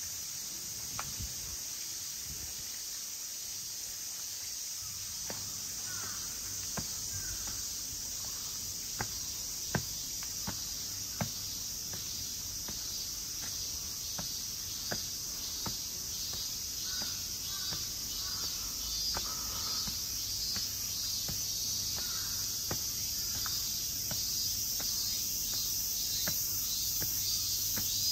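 Steady outdoor chorus of insects, a high pulsing hiss that swells a little toward the end, with a dozen or so short sharp taps scattered through the middle.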